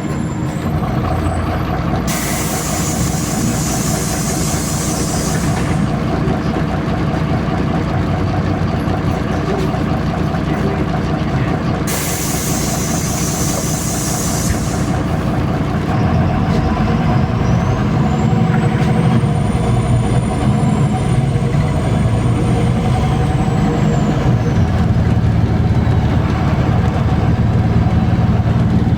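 MAZ-203 city bus engine running, with two long hisses of compressed air from the bus's air system about 2 and 12 seconds in. From about halfway the bus gets louder and a high whine rises, holds and falls away.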